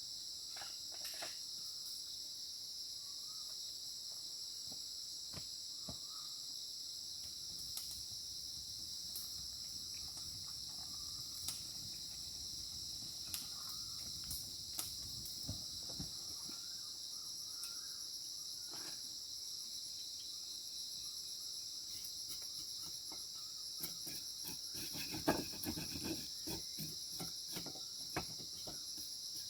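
Steady high-pitched insect chorus, a continuous trill, with scattered faint clicks and knocks and a short cluster of louder knocks about 25 seconds in.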